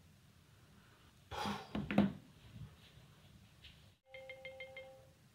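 Phone ringtone with a marimba-like sound, starting about four seconds in and playing a quick repeating phrase again and again. Before it, about a second and a half in, there is a short burst of rustling noise.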